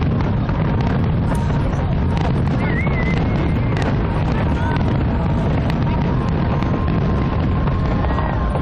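Steady wind rumble on a phone microphone over crowd chatter and faint music, with no clear firework bangs.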